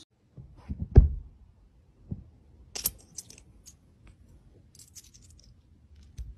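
A thump about a second in, then a lighter knock, followed by short bright clicks and a clink of small coins about three seconds in and again near five seconds.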